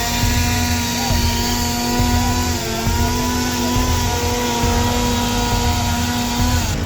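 Engines running in a traffic jam: a low rumble under a steady engine drone that dips slightly partway through and falls away near the end.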